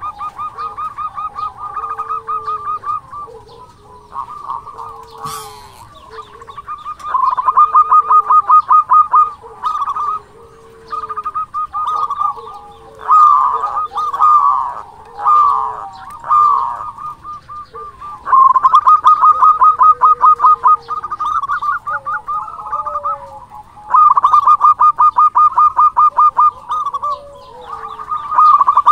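Zebra dove (perkutut) singing: repeated bouts of rapid, pulsed trilling coos, each bout one to three seconds long with short pauses between them. Softer, lower sliding coo notes fall in the gaps.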